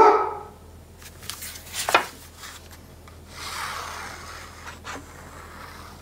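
Sheets of patterned paper sliding and rubbing across a cutting mat as they are shuffled by hand, with a sharp click about two seconds in.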